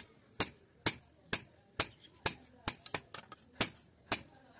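Hand hammer striking a cold chisel held on leaf-spring steel over an anvil block, cutting the steel by hand. The sharp, ringing metal blows come about twice a second, with a brief run of lighter, uneven taps about three seconds in before the steady blows resume.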